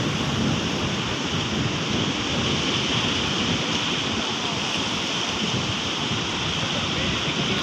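Steady rush of waves and surf.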